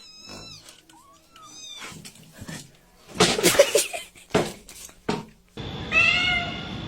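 Cat meowing several times in short calls that bend in pitch, with a louder, harsher cry about three seconds in; after a sudden change of background about five and a half seconds in, another meow.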